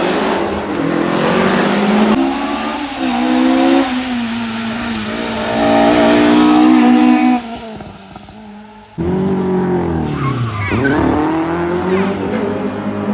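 Historic rally cars racing flat out on a stage, their engines revving up and down through gear changes in several short cuts. Near the end a car goes past with its engine note falling steeply.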